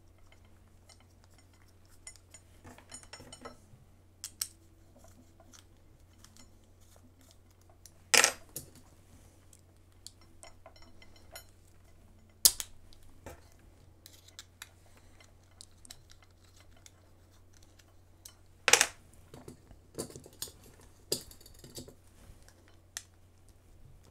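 Hands fitting small screws into a 3D-printed plastic stepper-motor bracket: scattered small clicks and taps of screws and plastic, with three sharper knocks spread through.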